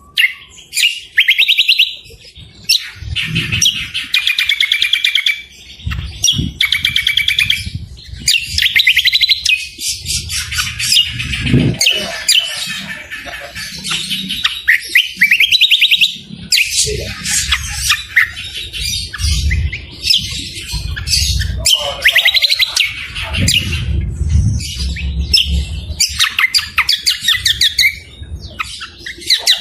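Loud, continuous songbird song: a cucak kombo and other cage songbirds in long runs of rapid trills, chattering and harsh calls. At times there is a low rumble underneath the song.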